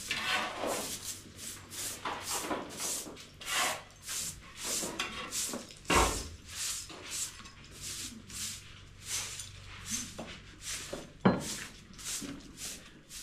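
Rhythmic scraping strokes, about two a second, with a heavier knock about halfway through and a sharp, loud knock near the end.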